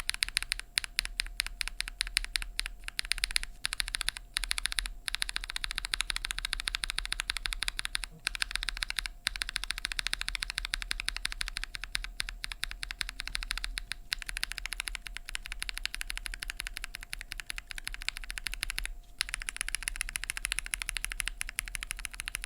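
Rapid, continuous typing on a mechanical keyboard with tactile switches (an aluminium-plate Vega board with GMK keycaps): many keystrokes a second, broken only by a few short pauses.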